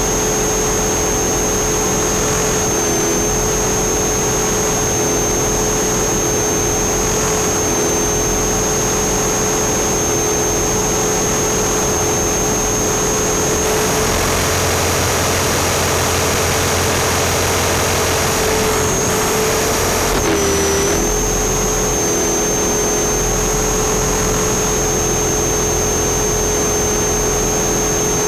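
Small electric RC helicopter (Align T-Rex 450 SE V2) in flight, heard through its own onboard camera: a steady motor whine and rotor drone. The pitch holds nearly constant, with a deeper rush coming in for a few seconds past the middle and a brief dip in pitch about twenty seconds in.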